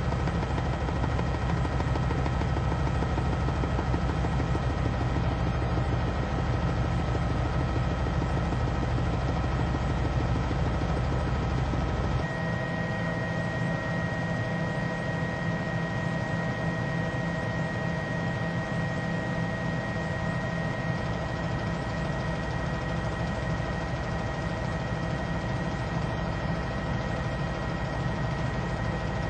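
Helicopter engine and rotor drone, a steady hum with several held tones. About twelve seconds in it changes abruptly: the low rumble drops away, the tones shift, and it runs on slightly quieter.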